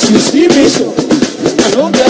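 Live gospel praise music: a man singing lead into a microphone over a band, with percussion keeping a steady beat.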